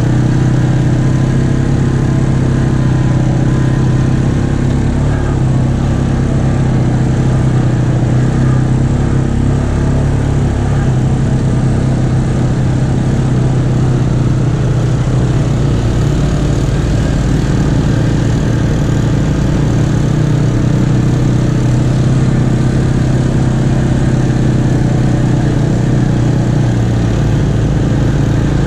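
ATV engine running steadily while riding along a dirt trail, heard from on board the machine, with an even drone and no big changes in revs.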